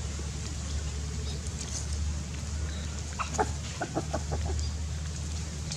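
A quick series of about six short animal calls, a little after the middle, over a steady low rumble.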